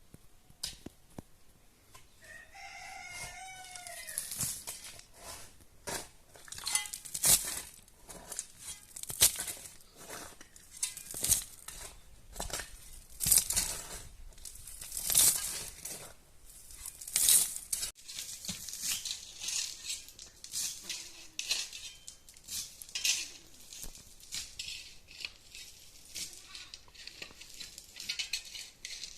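A rooster crows once, about two seconds in. Then come repeated sharp, hissy scraping strokes, roughly one every two seconds.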